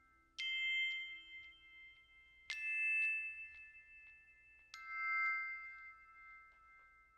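Background music: three slow, bell-like struck notes about two seconds apart, each ringing on and fading.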